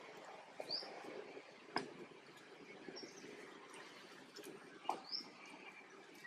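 Three brief, high animal chirps a couple of seconds apart, faint, over a quiet outdoor background with a couple of soft clicks.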